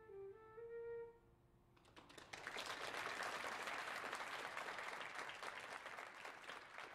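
A flute plays its last few notes, then about two seconds in the audience and band break into steady applause.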